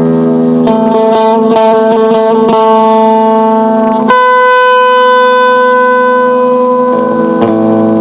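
Guitar played through effects, with long sustained notes and chords. About four seconds in a single note is struck and held for some three seconds, then a fuller chord comes in.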